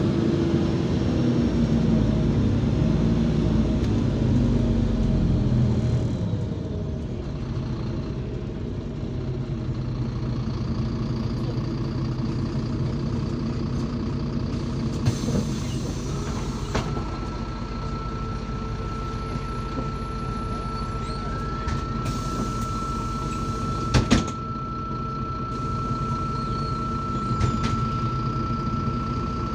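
Inside a MAZ 203 city bus: its Mercedes-Benz OM 926 LA diesel engine runs loud under load for the first few seconds, then drops to a quieter running as the bus slows and stands. Short hisses of compressed air come about halfway through and again near the three-quarter mark, a steady high tone starts just past halfway and continues, and a sharp double knock is heard about three-quarters in.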